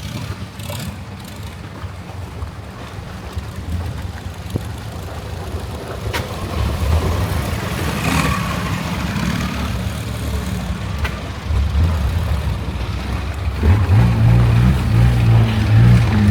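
Longtail boat engine running steadily with a deep hum, growing louder from about 14 seconds in.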